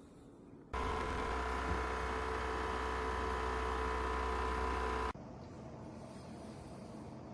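A steady machine whir with a low hum and several held tones. It starts suddenly about a second in and cuts off abruptly about four seconds later, leaving a fainter steady noise.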